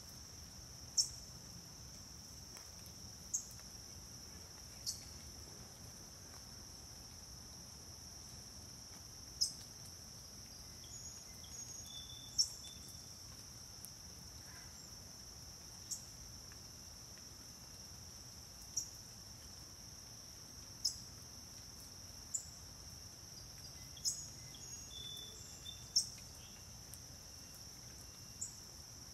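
Steady high-pitched insect chorus, with a bird's short, sharp chip notes every one to three seconds, about a dozen in all.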